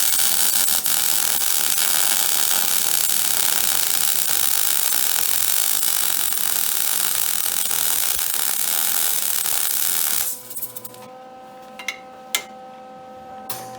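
Wire-feed (MIG) welder arc, a steady loud crackling hiss, held for about ten seconds and then cut off, leaving a steady hum and a couple of clicks.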